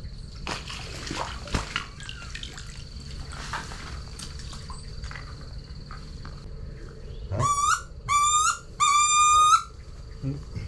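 Three loud, squealing duck calls in quick succession, each rising at the start and then holding, about seven to nine and a half seconds in. Before them come light rustling and clicks.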